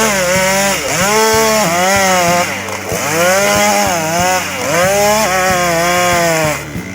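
Chainsaw cutting into wood at full throttle, the engine's pitch dipping as the chain bogs in the cut and climbing again about once a second. It drops away near the end.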